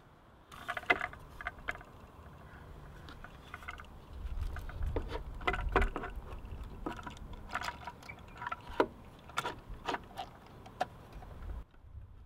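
Irregular clicks, taps and light knocks of a rebuilt plastic ABS control module being handled and fitted onto the metal ABS hydraulic unit, with a low rumble between about four and six seconds in.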